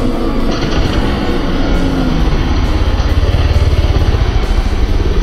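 Motocross dirt bike engines running, mixed with loud music.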